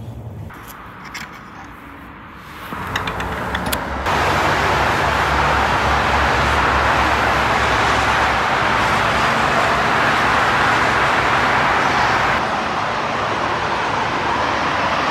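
Steady rush of road traffic noise from a road below, with no distinct horns or engines standing out. It grows louder about four seconds in.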